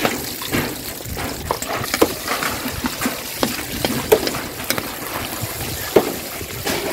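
Chopped garlic sizzling in hot oil in a large wok, stirred with a metal ladle that scrapes and knocks against the pan several times, the loudest knock near the end.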